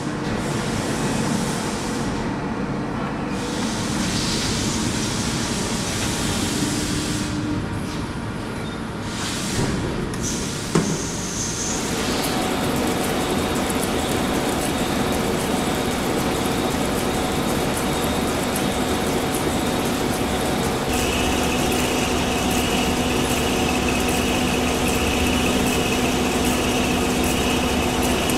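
Steady machining noise from a large milling machine, its face-milling cutter cutting into steel plate. The sound changes character a few times, and a steady high whine joins about three-quarters of the way through.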